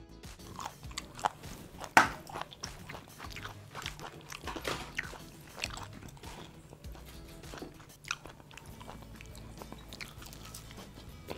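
A person eating crispy-breaded KFC fried chicken: a string of sharp, crackly crunches as the crust is bitten and chewed, loudest about two seconds in and thinning out after about six seconds. Background music runs underneath.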